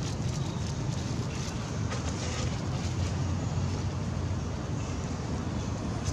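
Steady low rumble of wind buffeting the microphone, with a few faint short crackles.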